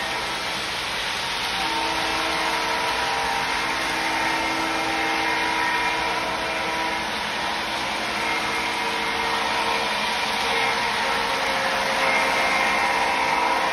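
Model trains running on a layout: a steady whirr of small electric motors and metal wheels rolling on track, with several held whines. It grows louder about twelve seconds in as a train passes close by.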